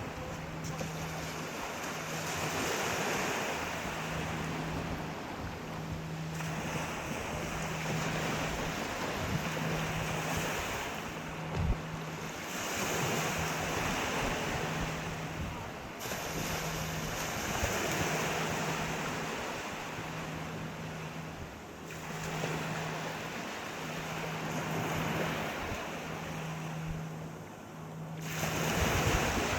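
Sea waves breaking and washing ashore at night, in swells every few seconds, the largest near the end. Under them a low hum cuts in and out regularly, about every second and a half.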